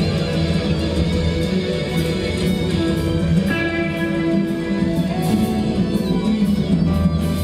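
Guitar music playing steadily over a venue's sound system, with bass and cymbals: background music between bands.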